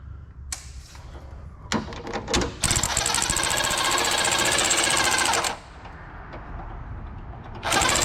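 Power impact wrench running a suspension bolt, in bursts: a few short blips about two seconds in, one long run of about three seconds, then another short run near the end.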